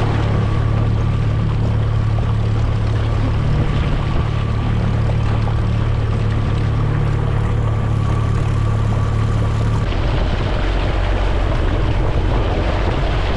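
Boat outboard motor running steadily under way, a constant engine hum with a dense hiss over it; the engine note drops a little lower about ten seconds in.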